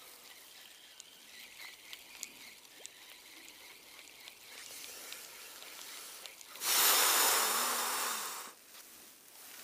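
Faint ticking and whirr of a spinning reel being wound in during a lure retrieve. About two-thirds of the way in comes a loud hissing rush lasting nearly two seconds.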